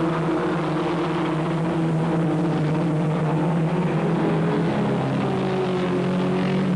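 Engines of single-seater racing cars running at speed, a steady drone that shifts in pitch about five seconds in.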